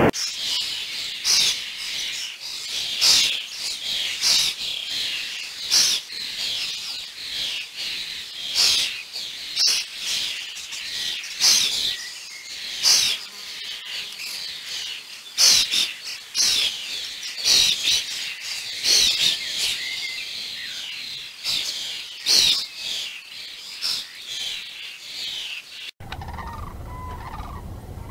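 A bird calling with short, high-pitched chirps, repeated about once or twice a second; near the end a different, lower-pitched sound abruptly takes over.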